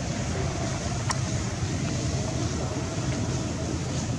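Steady low rumble of outdoor background noise, with one faint short click about a second in.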